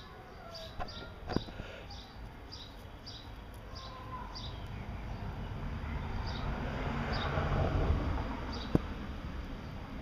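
A small bird chirping repeatedly, about two high chirps a second, thinning out midway and picking up again near the end. A rustling noise swells to its loudest a couple of seconds before the end, with a few sharp clicks.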